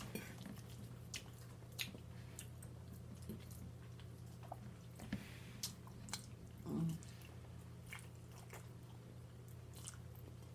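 Close-miked chewing of soft food (turkey Alfredo and dressing), with scattered small mouth clicks and smacks and a short hum about seven seconds in.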